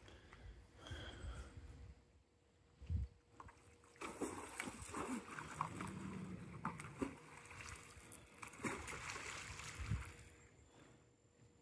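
Water splashing and sloshing for several seconds, with two low thuds, one before the splashing and one as it ends.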